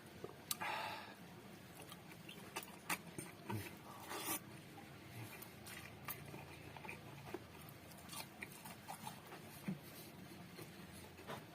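Close-miked eating: chewing and biting food, with scattered short sharp clicks and brief noisy smacks spread over the whole stretch.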